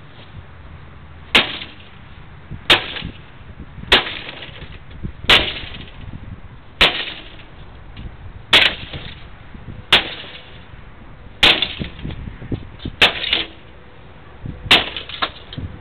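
An axe striking a desktop computer's parts again and again: about a dozen sharp blows, roughly one every second and a half, each ringing briefly.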